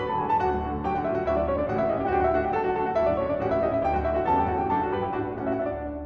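Background piano music, many notes played in a flowing line over a low pulsing bass.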